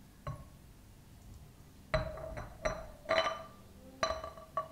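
Glass jar clinking as it is handled: a series of sharp clinks, each with a short glassy ring, one alone near the start and the rest close together in the second half.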